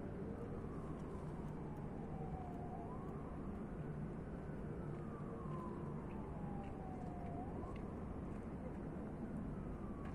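Faint emergency-vehicle siren wailing over a steady low rumble of traffic. Each sweep falls slowly over about three seconds, then rises quickly, about two and a half times.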